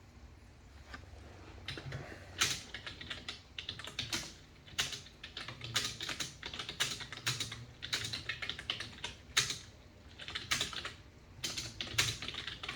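Typing on a computer keyboard: quick, irregular key clicks that start about two seconds in and go on in short runs.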